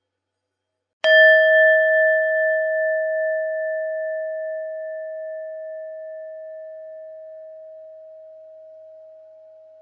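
A Buddhist meditation bell struck once about a second in, ringing one clear tone with a slight wavering in loudness; the brighter overtones die away within a couple of seconds while the main tone fades slowly.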